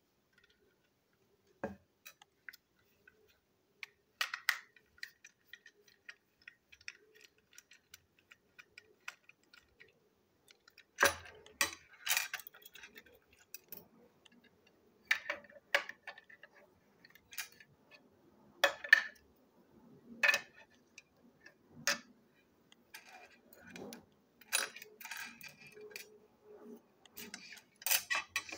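Plastic toy locomotive being taken apart by hand: irregular clicks, taps and knocks of plastic parts, wheels and small metal screws handled and set down on a hard tabletop. The sounds are sparse and light at first, then louder and more frequent from about eleven seconds in.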